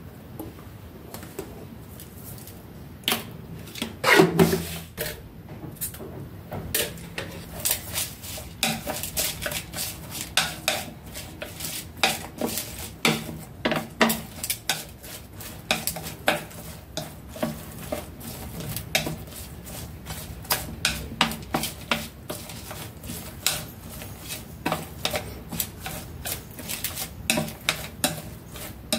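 Wooden chopsticks clicking and scraping against a plate as raw pig lung pieces are stirred with chopped ginger and garlic. A dense, irregular run of clicks starts about three seconds in, with one louder knock just after.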